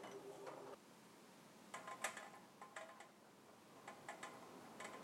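Faint, irregular clicks of champagne bottles being turned by hand in a wooden riddling rack, in small clusters with quiet between.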